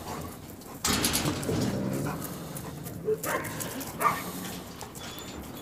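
A courting pair of wolves vocalising close together: a low grumbling sound starts suddenly about a second in, followed by a few short whimpers.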